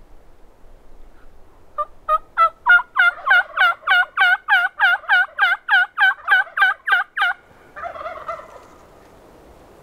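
A long, loud run of about twenty turkey yelps at roughly three to four a second, each a quick dipping note. It stops at about seven seconds and is followed by a shorter, rougher call.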